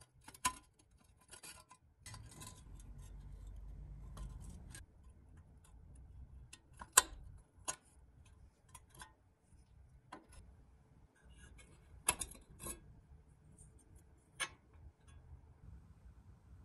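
Scattered light clicks and taps at irregular intervals, the sharpest about seven seconds in, from small parts being handled during a toy restoration. A low rumble runs between about two and five seconds in.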